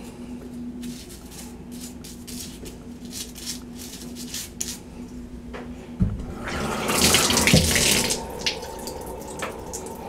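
Single-handle bathtub faucet turned on about six seconds in with a sudden knock, water rushing out for about two seconds before it is shut off again, testing the newly refitted handle.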